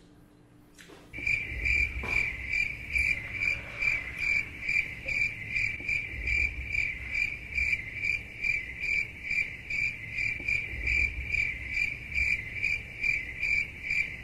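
Cricket chirping in a steady, even rhythm of about three chirps a second. It starts abruptly about a second in, over a faint low rumble.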